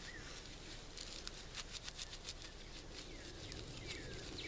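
Dry juniper bark being rubbed and torn by hand into fine tinder fibers: a quick, irregular run of faint scratchy strokes. A bird repeats short descending chirps from about three seconds in.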